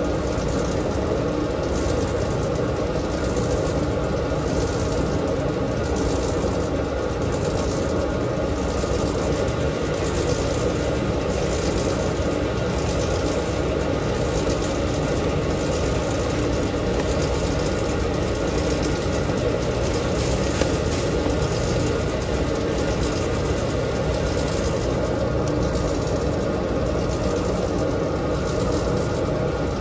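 Dexter T900 commercial front-load washer running, a steady motor-and-drum hum with a faint whoosh repeating about once a second.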